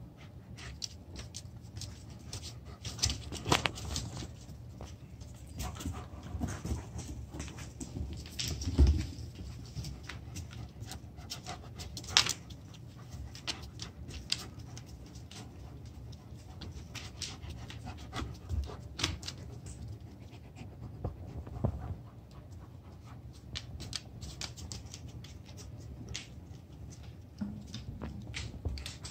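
An adult German shepherd, a German shepherd puppy and a miniature American shepherd playing on a hardwood floor: panting, with many short clicks and scrabbling of claws on the boards and a few louder knocks. The loudest is a thump about nine seconds in.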